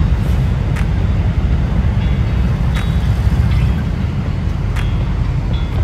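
Thai diesel railcar train rolling slowly past with a loud, steady low rumble. Sharp clicks come about every two seconds.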